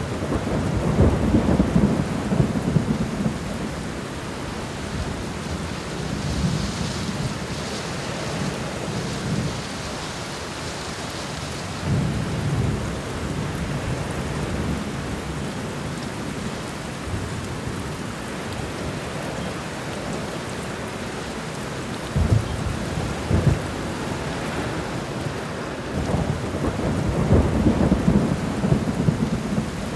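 Steady rain with thunder rumbling several times: a long low roll just after the start, another around twelve seconds, sharper cracks around twenty-two seconds, and a swelling roll near the end.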